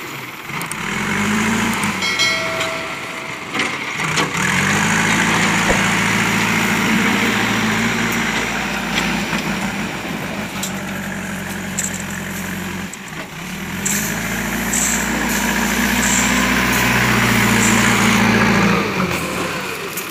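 JCB backhoe loader's diesel engine running under load, its note rising and falling as the machine drives and scoops gravel, with a few brief knocks in the first seconds.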